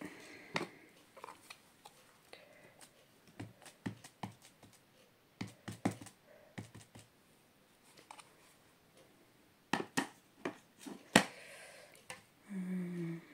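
Scattered light clicks and taps of clear acrylic stamp blocks and a plastic ink pad case being picked up, tapped and set down on a glass craft mat, with a few sharper knocks about ten and eleven seconds in.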